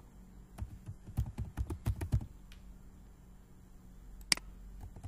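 Typing on a computer keyboard: a quick run of keystrokes from about half a second in to just past two seconds, entering one word, then a single sharp click near the end.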